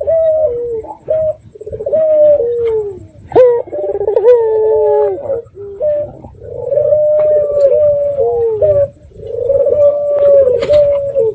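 Puter (collared dove) cooing in a run of phrases: short notes at first, then longer drawn-out coos with falling glides in the second half.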